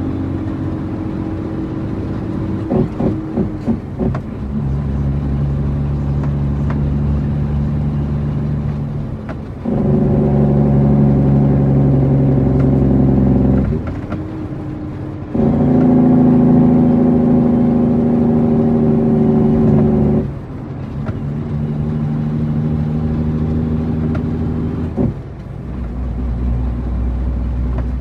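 International 9300 truck's diesel engine running. Its note changes in steps, with two louder spells of several seconds each and dips between them.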